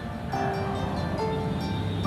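Background music: a melody of held notes over a steady low backing.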